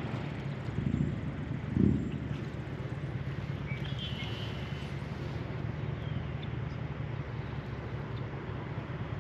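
Steady low drone of a distant engine under outdoor quiet, with a couple of dull bumps in the first two seconds and a short bird chirp about four seconds in.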